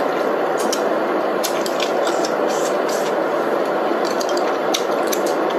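Hotpot broth simmering in an electric pan: a steady bubbling hiss with scattered sharp pops and clicks.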